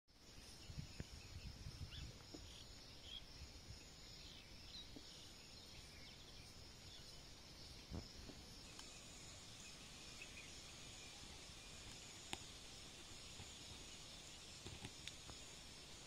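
Faint rural outdoor ambience: a steady high-pitched insect drone, such as crickets, with a few short chirps in the first few seconds. There is some low rumble in the first two seconds and a couple of sharp clicks, the loudest about twelve seconds in.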